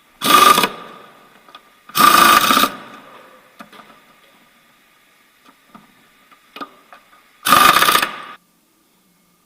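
Power impact wrench running in bolts on the engine mount in three short bursts, the last one the longest, with small clicks of tool handling between them.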